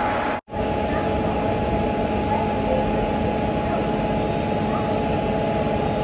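WAP-4 electric locomotive standing coupled at the platform, humming steadily with a few steady tones from its running machinery. The sound cuts out for an instant about half a second in.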